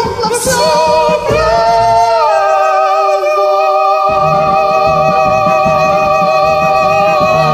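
A woman's voice holds a long final note with vibrato over the song's backing track. The note steps up in pitch about two seconds in.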